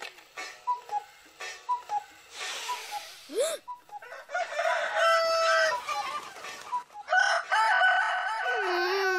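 A rooster crowing: short clucking calls at first, then long drawn-out crows, the longest near the end. It is the racket that keeps a sleeper awake.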